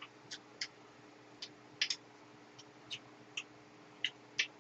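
Eating sounds: irregular small clicks and smacks of chewing, about a dozen in all, the loudest a little under two seconds in and near the end, over a faint steady hum.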